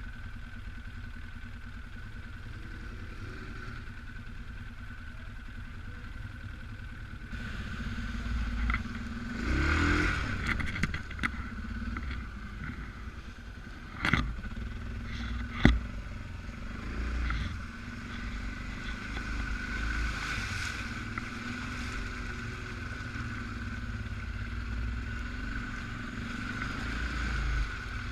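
Suzuki KingQuad 750 AXi ATV's single-cylinder engine running at low speed off-road, getting louder and rougher about a quarter of the way in. Scraping, rattling and two sharp knocks come about halfway through as the quad works over rough ground.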